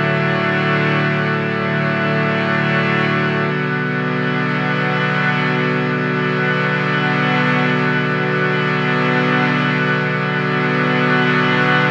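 Harmonium playing long sustained chords with a slow waver in the tone, moving to a new chord about three and a half seconds in.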